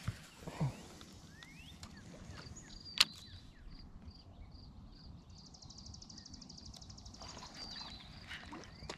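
Baitcasting reel being wound to retrieve a topwater lure, a faint rapid ticking, with one sharp click about three seconds in.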